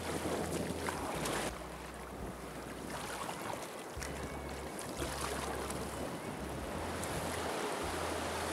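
Wind buffeting the microphone over choppy sea, with waves splashing around a kayak as it is paddled.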